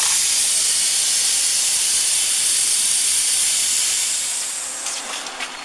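Plasma cutting torch on a CNC plasma cutting machine hissing steadily with its jet of air, dying away about four and a half seconds in. A few faint clicks follow near the end.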